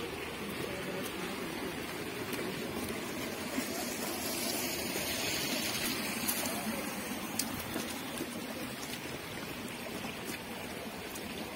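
Water running in a shallow ditch beside the path: a steady rushing trickle that swells a little in the middle, with a few faint clicks.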